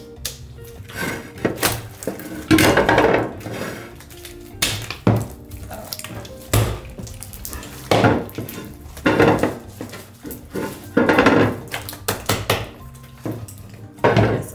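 Hands squishing and kneading sticky homemade slime in glass mixing bowls, a string of squelches and smacks every second or so, with the slime and hands now and then knocking against the glass.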